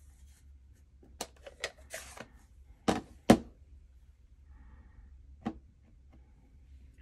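Sharp plastic clicks and knocks as a stamp ink pad's case is opened and a clear acrylic stamp block is handled and pressed onto the pad. The loudest two knocks come close together about three seconds in, with a single tap about two seconds later.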